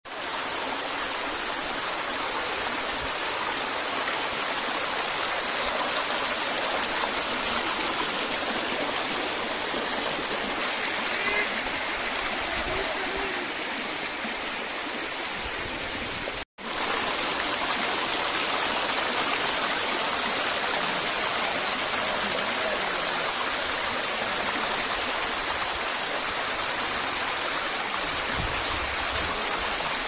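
Waterfall water rushing and splashing over rocks, a steady, even hiss that cuts out for a moment about halfway through.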